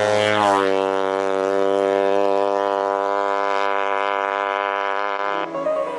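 Small two-stroke chainsaw engine of a 90cc pocket bike running at high, steady revs; its pitch dips briefly about half a second in, then holds until the sound changes near the end.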